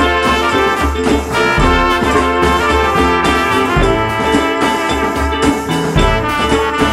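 Music track with trumpets and other brass over a steady, pulsing beat.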